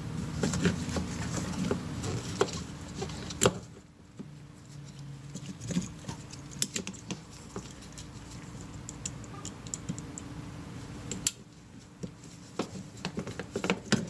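Scattered small clicks and rubbing as gloved hands pull the three wire connectors off a Club Car golf cart's plastic forward and reverse switch and push them onto a new switch, with two sharper clicks among them.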